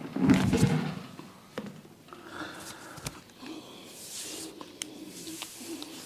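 Head massage by hand: a loud quick flurry of strokes on the head about a quarter of a second in, then quieter hand sounds on hair and skin with a few sharp clicks.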